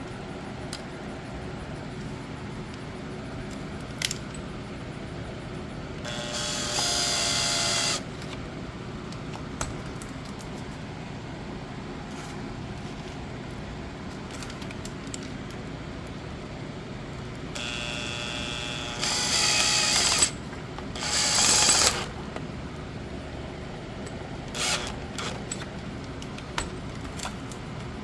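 Cordless drill-driver whirring in three short runs, about two seconds each, as the new ignition coil's screws are driven in. A few light clicks of handling come between the runs, over a steady background hum.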